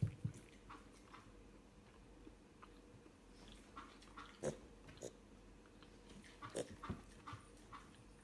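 Piglet making faint, short grunts and sniffs, with a few louder ones about four and a half seconds in and again around six and a half to seven seconds.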